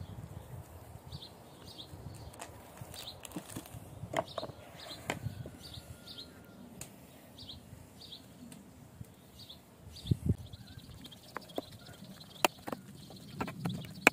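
A small songbird chirping over and over in short high calls, often in pairs. In the last few seconds a metal spoon clicks and scrapes against a plastic bowl as grated potato dough is stirred.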